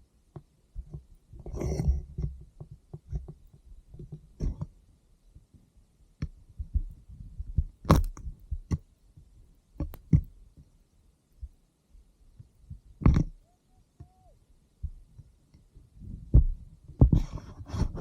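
Irregular low thumps and a few sharp knocks, some close together and some seconds apart: a snowboard and the rider's gear bumping through deep powder snow.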